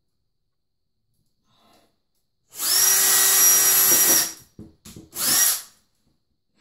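Milwaukee cordless drill/driver driving a cabinet screw into a wall stud: the motor whines up to speed and runs for nearly two seconds, gives a couple of short clicks, then one more brief burst.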